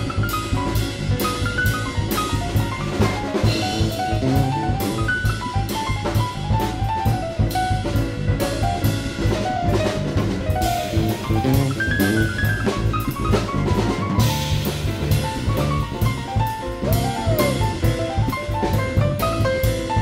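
Background instrumental music with a drum kit keeping a steady beat under a shifting melodic line.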